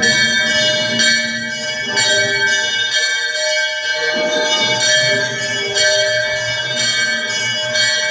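A metal bell struck about once a second, each stroke ringing on into the next, with many long overlapping tones.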